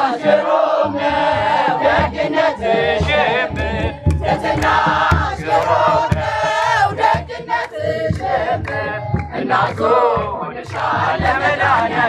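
Crowd of worshippers singing an Ethiopian Orthodox hymn together, with a kebero drum beaten in a steady rhythm under the voices.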